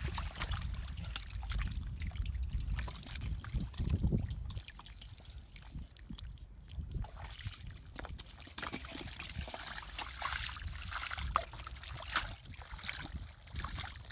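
Gloved hands digging and scooping in wet mud, with squelching, sloshing and trickling water and many small irregular wet clicks. A low rumble sits under it for the first four seconds or so.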